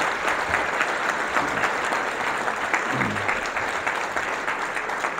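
Audience applauding: many hands clapping in a dense, steady patter, with a voice briefly heard over it about three seconds in.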